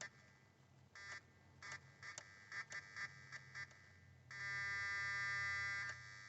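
Electrical buzzing under the hood of a 2002 Mazda Tribute with the key on and the engine off. It comes as several short buzzes, then a steady buzz of about two seconds near the end. The owner hears it at the throttle body, in a car that cranks but won't start, with no fuel pressure.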